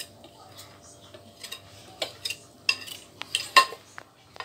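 Kitchen utensils clinking and knocking: a whisk against the cake pan and bowl, with a few sharp clicks in the second half, the loudest about three and a half seconds in.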